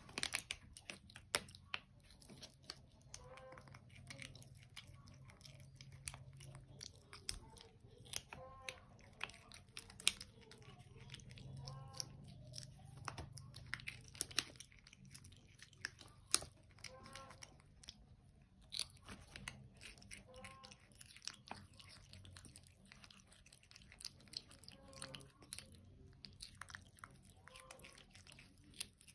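Young macaque biting and chewing crunchy raw green vegetable stalks, with irregular sharp crunches.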